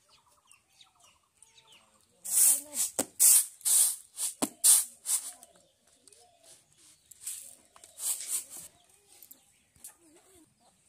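Chickens clucking and cackling: a loud run of repeated calls, about three a second, with a softer group of clucks a few seconds later.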